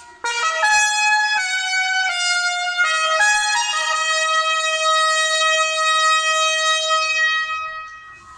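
A solo brass instrument playing a short phrase of quick notes, then one long held note that fades out near the end.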